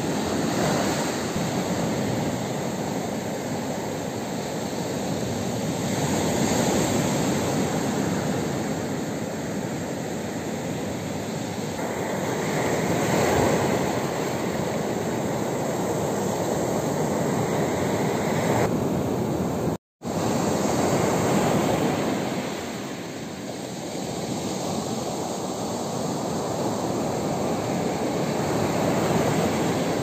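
Small waves breaking and washing up a pebble beach: a steady rushing surf that swells and eases every several seconds. It cuts out for an instant about two-thirds of the way through.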